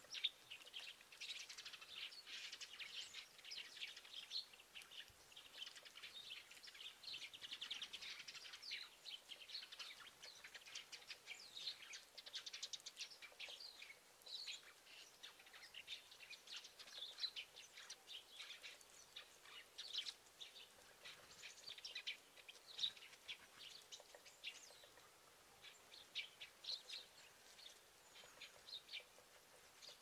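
Faint, busy chirping of small birds: many short high calls overlapping, thick in the first half and thinning out in the second.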